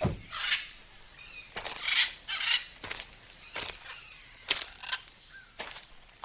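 Camera shutter clicking repeatedly, about nine short clicks irregularly spaced half a second to a second apart, with a low thump right at the start.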